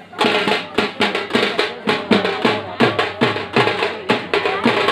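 Live drums played in a fast, steady beat, several loud strokes a second.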